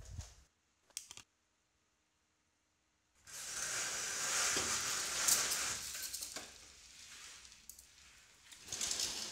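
Vertical window blinds being drawn open: the slats rustle and clack against each other for a few seconds. It starts suddenly about three seconds in after a moment of dead silence, fades after about six seconds, and a shorter burst comes near the end.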